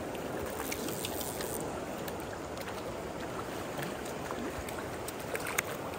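River current flowing steadily over the streambed, a continuous rushing wash close to the water's surface. A few faint ticks about a second in and a short tap near the end.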